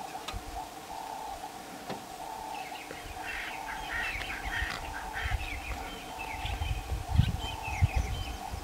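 Birds chirping and calling in quick runs over a steady background drone, with two low thumps near the end.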